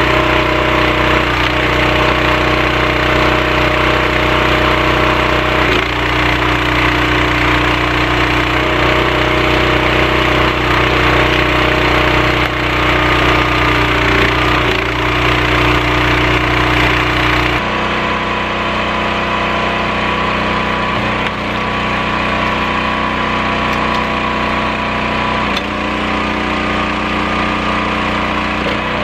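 Small gas engine of a hydraulic log splitter with a 28 gpm pump running steadily, its note shifting a few times as the splitter works, with occasional cracks of wood splitting.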